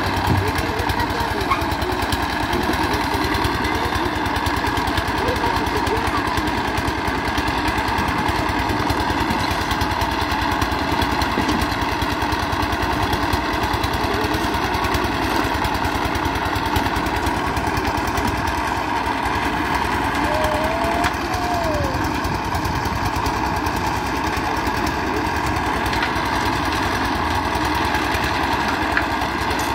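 Small engine of a portable drum concrete mixer running steadily as it turns the drum, mixing concrete.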